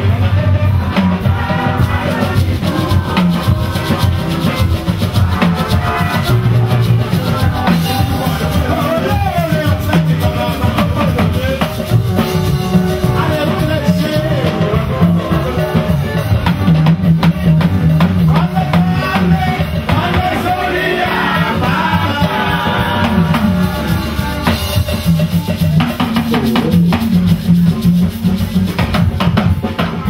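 Upbeat church music: drums and percussion with a bass line moving under group singing.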